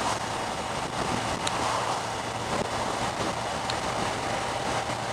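Steady wind rush over the microphone and tyre hiss on a wet road from a motorcycle cruising at highway speed, with the Kawasaki Z1000SX's engine running steadily underneath.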